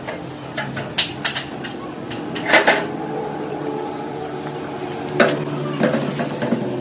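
Steel gearbox parts clinking and knocking against each other in a series of sharp metallic strikes, loudest about two and a half seconds in and again near five seconds, over a steady low hum.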